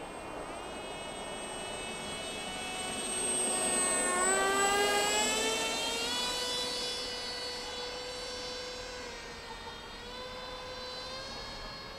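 Electric motor and propeller of a Z84 foam flying wing whining as it flies overhead. It grows louder to a peak about four to five seconds in, its pitch shifting as it passes, then fades a little.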